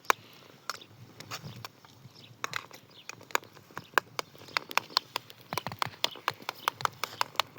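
Rapid, irregular sharp clicks and taps, several a second.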